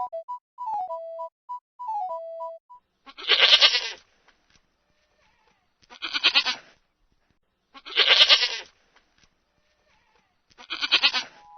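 A goat bleating four times, each bleat just under a second long, about two and a half seconds apart.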